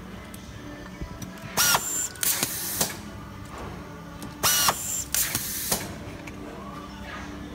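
Handheld automatic screwing machine driving screws into plastic tape measure cases, two cycles about three seconds apart. Each cycle is a short rising motor whine followed by about half a second of hiss, with small clicks of the cases being handled between them.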